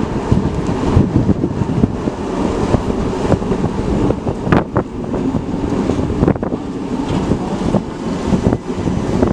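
Strong wind buffeting the camera's microphone: a loud, uneven low rumble, with a few sharper gusty knocks about halfway through.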